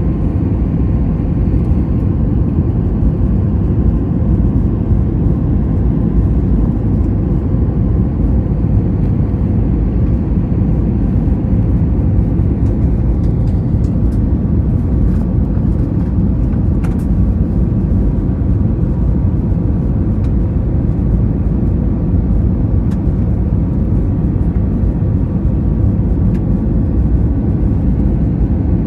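Cabin noise of an Airbus A320 in flight on its landing approach: a steady low rush of airflow and engine hum with a faint steady tone.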